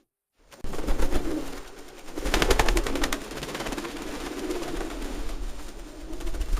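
Feral pigeons cooing in low, repeated coos. About two seconds in, a rapid burst of sharp clattering clicks lasts around a second.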